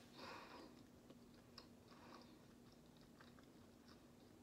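Near silence: faint mouth sounds of a person chewing a mouthful of rum cake, with a soft rustle just after the start and a few small clicks, over a faint steady hum.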